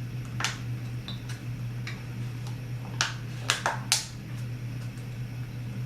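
Chewing crunchy yogurt-coated pretzels: a handful of sharp crunches, most of them bunched about three to four seconds in, over a steady low hum.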